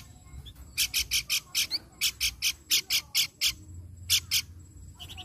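Pelanduk bukit babbler calling: harsh, raspy notes in quick runs of five or six, about four or five a second, with short pauses between runs and a final pair near the end.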